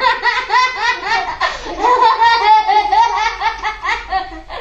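Several people laughing hard together, loud and high-pitched, in quick repeated bursts.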